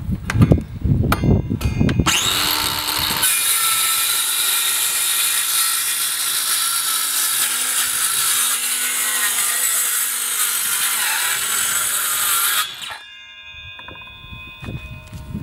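Parkside 20V cordless circular saw spinning up about two seconds in, then its blade biting into a wooden board and cutting with a loud, steady high-pitched sawing noise. The sawing stops abruptly near the end, leaving a few faint fading tones as the blade coasts down.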